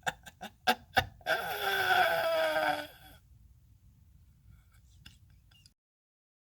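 Ending of a backing music track: a few sharp percussive hits, then a loud held note that slides slightly down in pitch for about a second and a half. A faint low rumble follows, then it cuts to silence.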